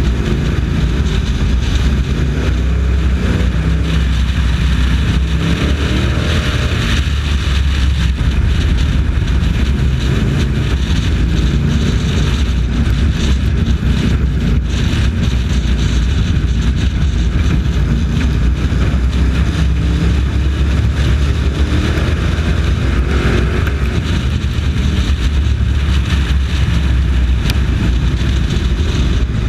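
Race truck engine running hard at racing speed, heard close up from the hood, its pitch rising and falling twice through the lap.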